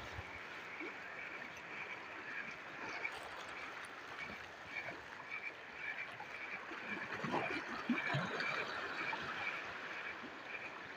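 Open-water ambience of water lapping and wind, with a thin high chirp repeating evenly a few times a second from an animal calling on the shore.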